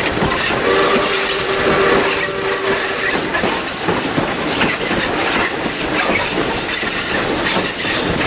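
A steam-hauled train of wooden passenger carriages running along the line, heard from an open carriage window: a steady rush of wheel, track and wind noise with rapid knocks. A faint whine sits over it for the first three seconds or so.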